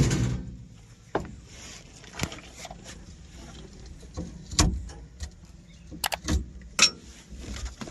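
Hands working in an excavator's fuse and relay box: a loud knock at the start, then scattered sharp plastic and metal clicks and knocks as relays and fuses are handled, with a quick cluster of clicks near the end.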